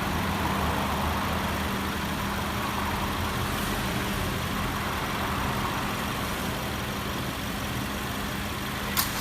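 2018 Subaru Forester's flat-four engine idling steadily with the air-conditioning compressor running, carrying the abnormal running noise that the owner puts down to a faulty A/C compressor. A single sharp click near the end.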